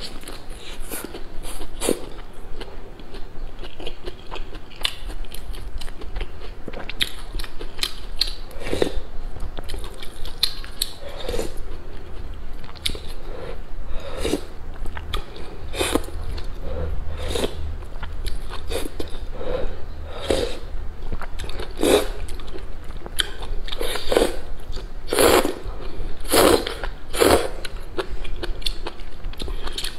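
A person eating close up: biting and chewing a flatbread wrap and slurping noodles and broth from a spoon, short mouth sounds coming irregularly a second or so apart.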